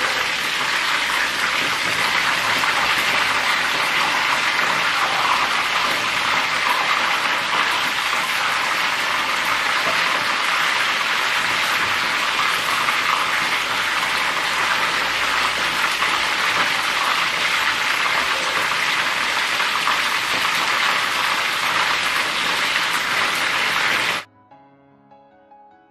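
Hot oil sizzling steadily as batter-coated chicken-stuffed chillies fry, cutting off suddenly near the end.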